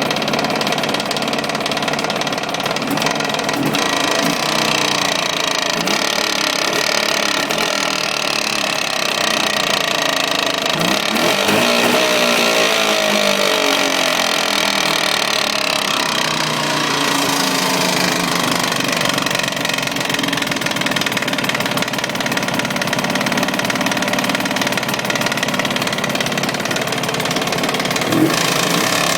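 Jawa 638's two-stroke twin-cylinder engine running hot with a knock, the revs rising and falling once around twelve seconds in. The knock appears only when the engine is fully warmed up, and its cause is unknown: new cylinders, rings and wrist-pin bearings have not cured it, and the pistons do not strike the heads.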